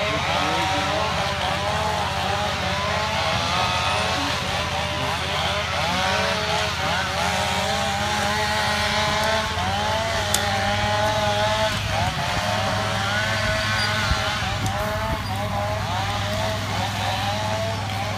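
A small engine running and revving up and down, its pitch wavering unsteadily, over a steadier low engine hum.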